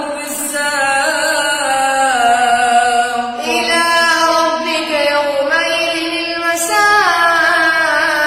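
A single voice reciting the Quran in a slow, melodic chant, holding long drawn-out notes with ornamental bends in pitch, with short breaks for breath.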